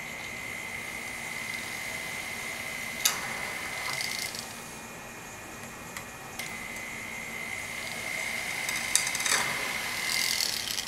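Flex shaft rotary tool drilling small holes in sheet metal with a very small bit: a steady high whine that stops for about two seconds midway, then starts again. There is a sharp click about three seconds in.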